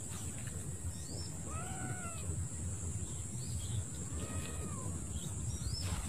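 A goat bleating twice: two drawn-out cries that rise and fall in pitch, a couple of seconds apart, over a steady low background rumble.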